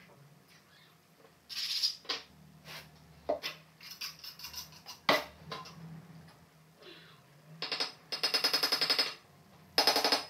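Hand work on porcelain floor tiles: scattered clicks and knocks of tile and tools, then a rapid rasping scrape lasting about a second and a half, about eight seconds in, and another short scrape near the end.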